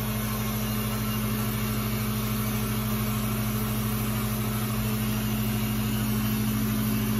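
A steady low hum over an even hiss, unchanging throughout.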